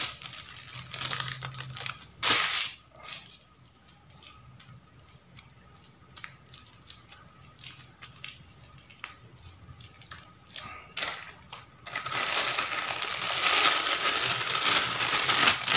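Thin plastic bag crinkling and rustling as it is handled and wrapped around a lump of steamed bait dough. It comes in short bursts at first, with a few small clicks through a quieter middle stretch, then crinkles continuously and loudest over the last few seconds.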